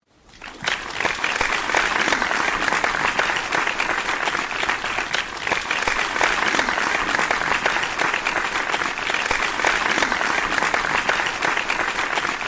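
Crowd applauding, a dense steady clapping that fades in at the start and fades out at the end.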